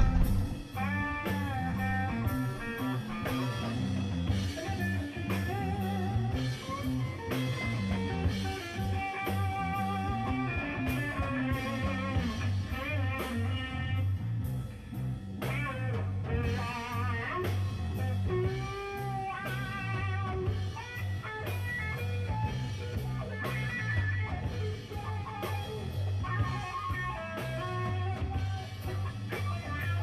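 Rock backing music: a guitar playing bending, wavering melodic lines over a steady drum beat.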